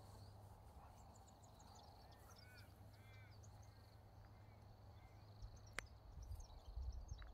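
Faint bird calls: a run of short high chirps and a few arched calls in the first half, over quiet outdoor background. A single sharp click about six seconds in, and low rumbling near the end.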